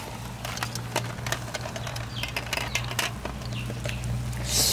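Snails grilling in their shells over charcoal, crackling and popping in irregular sharp clicks, with a brief hiss near the end.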